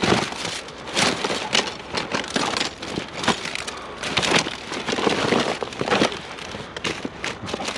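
Hands rummaging through a box of discarded household items: irregular rustling, crinkling and knocks of objects being shifted and pulled out.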